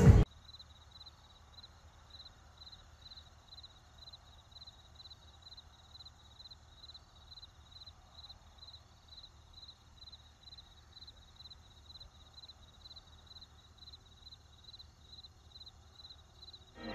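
Faint cricket chirping: a steady train of short, high chirps about twice a second, over a low background hum.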